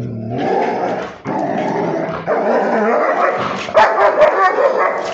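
German Shepherd barking and growling repeatedly, loud and almost without pause.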